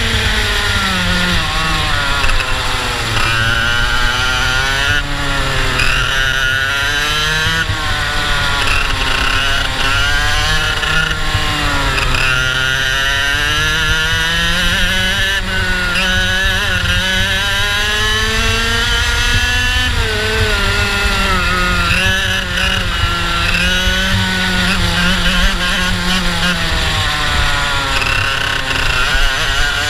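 Racing kart's IAME two-stroke engine at full throttle through a lap, revs climbing along each straight and dropping into each corner, about eight times over, with a steady low rumble beneath.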